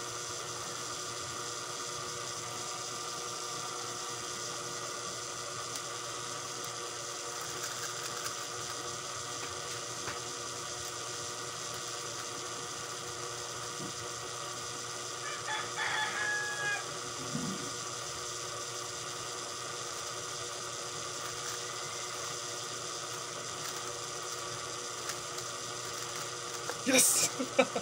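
A steady electrical hum, with a short pitched call about halfway through and a few sharp clicks near the end.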